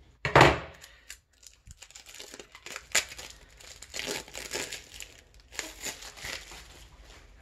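Wrapping on a new tarot card deck being torn and crinkled as the deck is opened. A loud bump about half a second in is followed by scattered crinkles and clicks.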